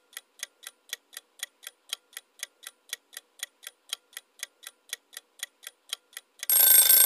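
Clock-ticking sound effect for a quiz countdown timer, about four even ticks a second. About six and a half seconds in, a much louder ringing alarm sound cuts in, signalling that time is up.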